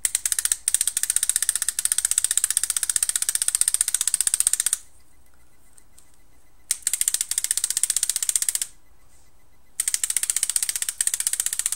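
Proto SLG electronic paintball marker cycling rapidly in PSP ramping mode: three bursts of fast, even clicks, the first about five seconds long, then two shorter ones after pauses.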